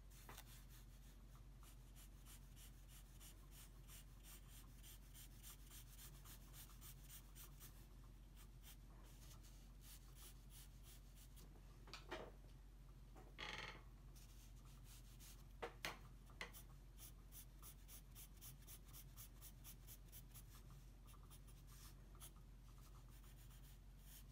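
Pencil strokes on drawing paper: faint, quick scratching in runs of shading strokes, with a few louder strokes near the middle.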